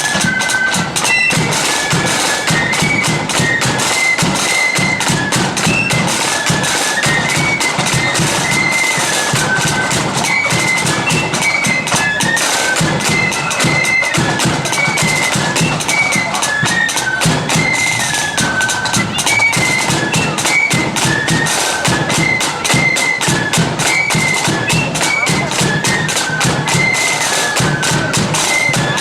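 Marching band playing: a shrill, high melody on wind instruments over rapid, continuous drumming.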